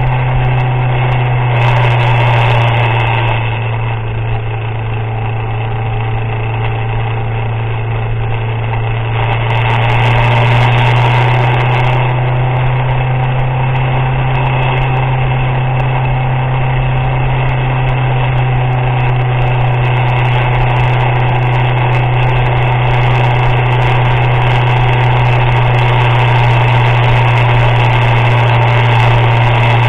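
A vehicle's engine running steadily while driving in the rain, a constant low drone under a haze of wet-road and wind noise. It eases off a little a few seconds in and grows slightly louder about ten seconds in.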